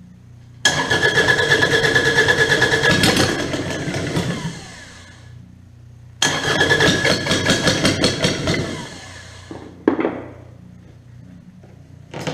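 Kubota D722 three-cylinder diesel being cranked on its starter in two bursts of about four and three seconds, with a steady whine under rapid pulsing, while it tries to start. A sharp click follows near the end.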